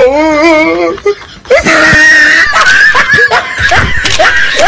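Loud, high-pitched laughter: a wavering laugh, then a string of short rising yelps.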